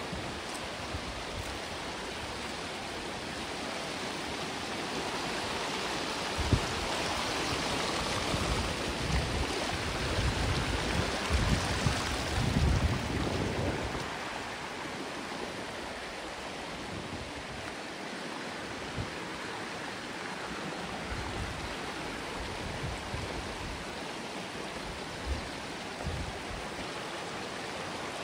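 Oak Creek flowing, a steady rush of water that swells for several seconds in the middle, with occasional low wind rumble on the microphone.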